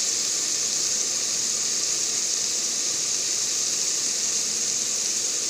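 Onions, tomatoes and green chillies frying in oil in a pan, giving a steady high sizzle.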